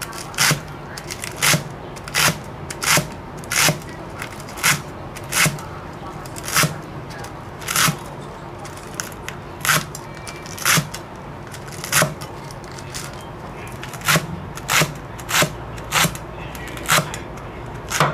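Cleaver chopping garlic chives on a round wooden chopping block: a steady run of sharp knocks, a little more than one a second.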